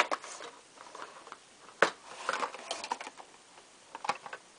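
Hands handling a white plastic desk organiser and its cardboard packaging: scattered irregular clicks and knocks with light rustling. The sharpest knock comes a little under two seconds in.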